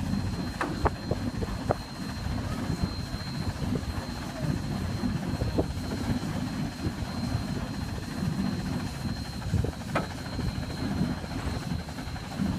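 Machinery running with a steady low rumble and a thin high whine, with a few sharp knocks, the clearest about a second in and near ten seconds.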